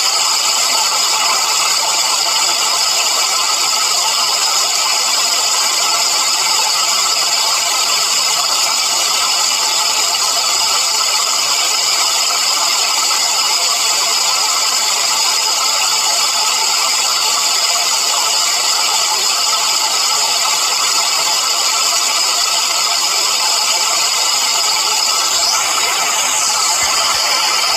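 A steady, unbroken machine-like hiss and drone with strong high bands, used as a sound effect, shifting slightly a couple of seconds before the end.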